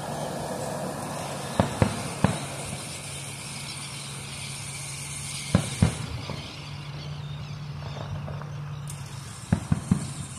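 Aerial fireworks bursting: sharp bangs in small groups, three about two seconds in, two more around five and a half seconds, and a quick string of them near the end. A steady low engine hum runs underneath.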